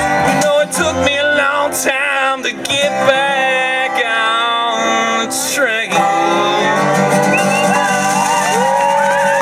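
Live band playing the closing instrumental bars of a country-rock song, with sustained and bending notes; near the end whoops from the crowd begin over the music.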